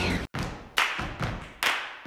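Background music: an acoustic guitar strummed in sharp strokes that fade out, about two a second, starting after a brief break.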